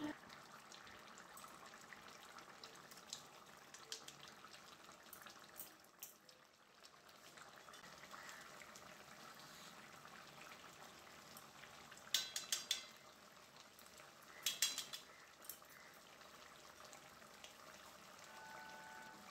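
Faint bubbling of a young jackfruit and potato curry simmering in an aluminium kadai, with small clicks and two short metallic clinks, about twelve and fifteen seconds in.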